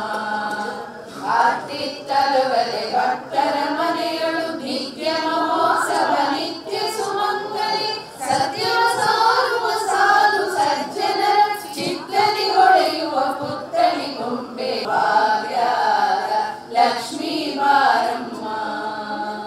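Several voices singing a devotional chant together during a Hindu pooja, with a faint steady low hum underneath.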